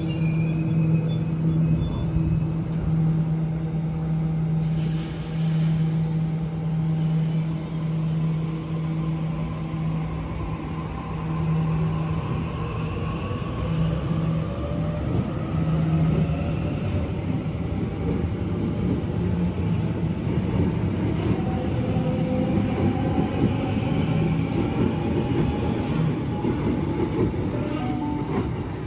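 Electric suburban passenger train at the station platform: a steady hum, a short hiss about five seconds in, then whining tones that glide in pitch over a growing rumble of wheels on rails.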